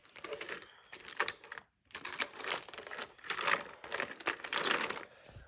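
Toy trains moving along wooden toy train track, their wheels and cars clicking and clattering irregularly, with a brief pause a little under two seconds in.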